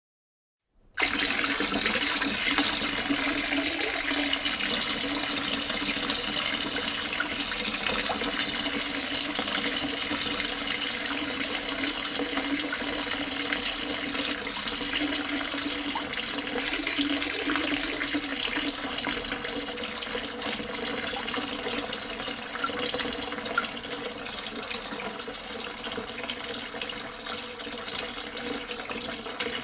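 A steady stream of water poured into a half-full sink or bathtub, splashing and bubbling into the standing water. It starts abruptly about a second in and runs steadily, easing a little near the end.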